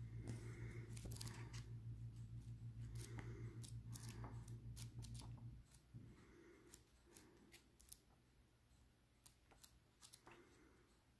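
Pages of a tarot deck's paperback guidebook being turned by hand: faint paper rustles and light ticks. A low steady hum runs underneath and stops about halfway through.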